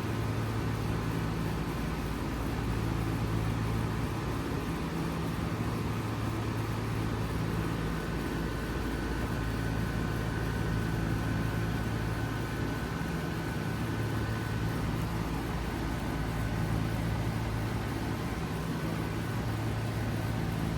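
Lennox Merit series 5-ton heat pump outdoor unit running steadily: the compressor's low hum under the rush of air from the condenser fan. Partway through, a faint high whine sits on top for several seconds.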